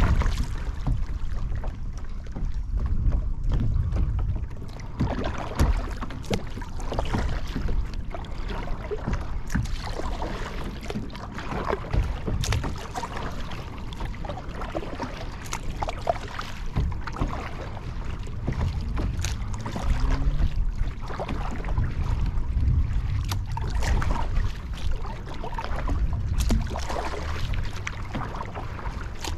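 Water splashing and lapping around a Field & Stream Eagle Talon 12 kayak, with scattered small knocks and a low rumble of wind on the microphone.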